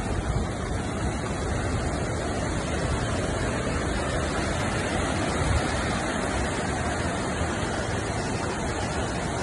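Muddy floodwater of a swollen river rushing past, a steady, unbroken noise.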